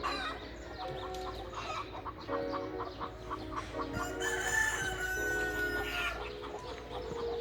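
A rooster crows once, about four seconds in, a single long call lasting roughly two seconds. Background music with sustained chords plays throughout.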